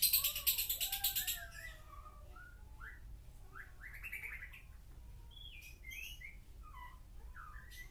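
Lovebird singing in the fast, unbroken 'konslet' style: a loud, rapid, harsh high trill that cuts off suddenly about a second and a half in. It is followed by quieter scattered chirps and short whistled glides.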